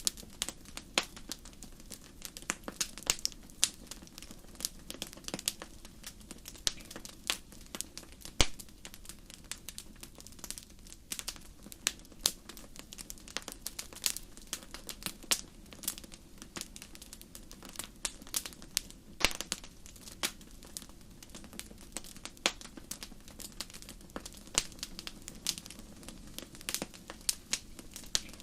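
Crackling fire: irregular sharp pops and snaps, several a second, over a faint steady low background.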